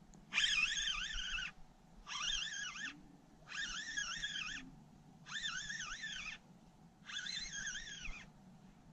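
Fishing reel whining under load in five near-identical bursts about every second and a half, the pitch wobbling within each burst, as a hooked striped bass is played on light tackle.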